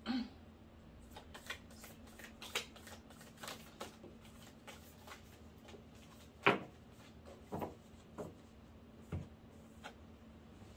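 A deck of tarot cards being shuffled by hand: a run of soft riffling and slapping card sounds, with a louder snap about six and a half seconds in. Near the end, cards are laid down on the cloth-covered table.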